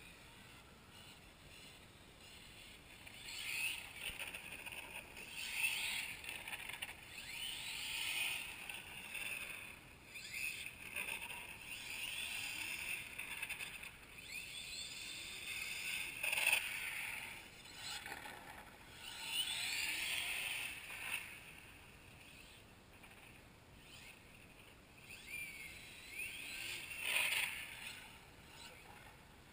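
Radio-controlled model car driving on tarmac, its motor whining up and down in pitch as it speeds up and slows. The sound swells and fades several times as the car comes close and moves away.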